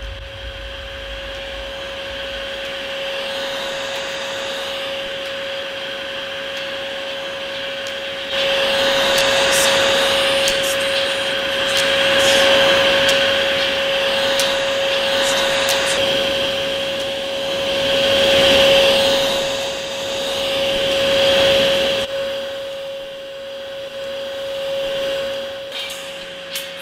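Vacuum cleaner running, a steady motor whine over rushing air. It gets louder about eight seconds in, then swells and fades several times.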